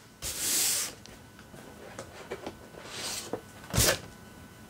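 Cardboard and packing paper rustling and scraping as a boxed Funko Pop figure is pulled out of a cardboard shipping case, with scattered small taps and a short louder bump near the end.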